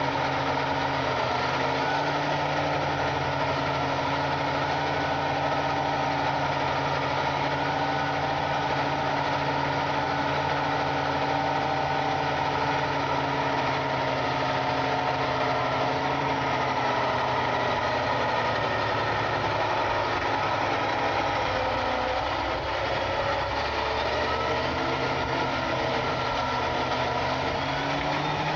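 John Deere 8260R tractor's six-cylinder diesel engine running steadily with an even drone as the tractor drives. Its pitch sags a little past the middle and picks up again near the end.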